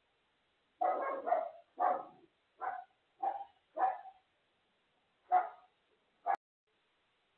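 A dog barking: six barks in quick succession, then two more after a short pause, the last one short and sharp. Heard thin through a home security camera's microphone.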